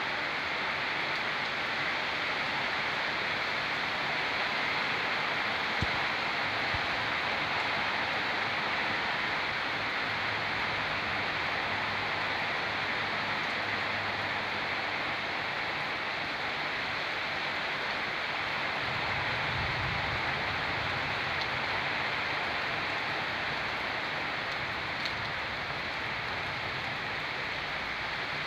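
Heavy rain falling steadily, a continuous even hiss, with a short low rumble about two-thirds of the way through.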